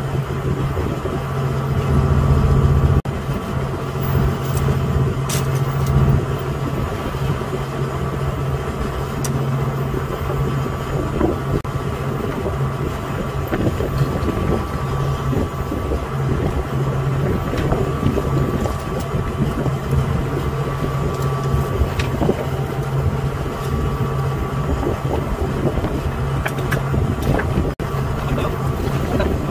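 Fishing boat's engine running steadily with a low hum, with a few faint clicks.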